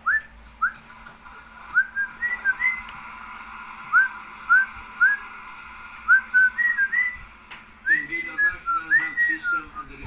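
Cockatiel whistling a string of short, rising whistle notes, some singly and some in quick runs of two or three, coming faster near the end.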